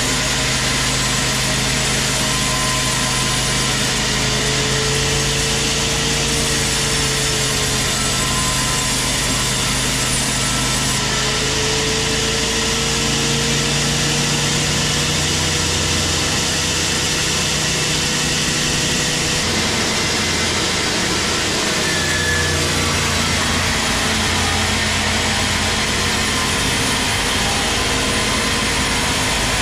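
Sawmill band saw cutting through a large teak log: steady, continuous machine noise with a motor hum underneath and faint tones that drift slightly up and down.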